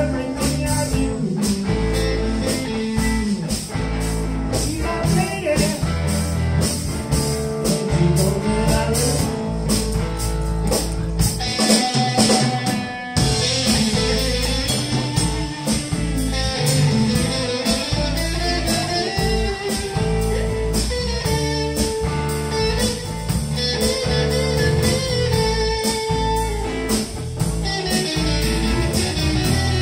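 Live blues band playing: two electric guitars, electric bass and drum kit, with guitar notes bending up and down over a steady drum beat.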